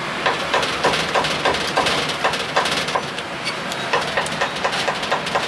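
A steel cleaver chopping braised pork and pig ears on a wooden chopping board, in quick regular chops of about three a second, growing more uneven near the end, over steady background noise.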